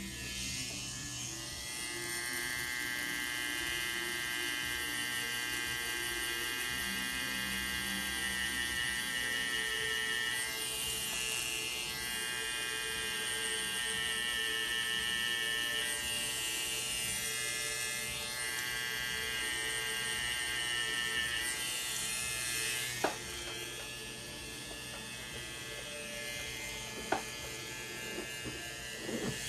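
Electric tattoo machine running with a steady buzz, with two sharp clicks in the later part.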